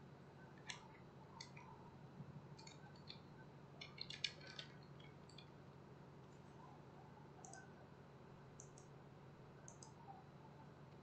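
Faint computer keyboard keystrokes and mouse clicks, scattered, with a quick run of keystrokes about four seconds in, over a low steady hum.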